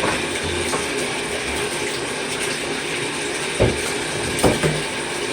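Water running steadily from a tap into a tub, with two short knocks a little under a second apart past the middle as parts are handled in the tub.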